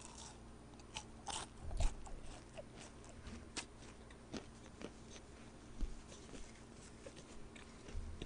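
Close-miked chewing of a piece of chocolate: irregular small crunches and mouth clicks, busiest about a second and a half in, then sparser.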